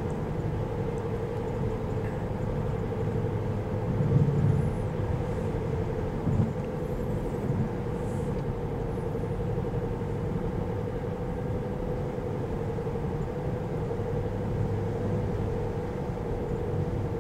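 Road and tyre noise inside a Tesla electric car's cabin cruising at about 55 mph: a steady rush with a steady hum running through it.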